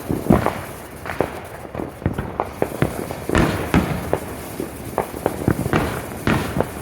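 Fireworks going off: a run of irregular sharp pops and bangs, some louder than others.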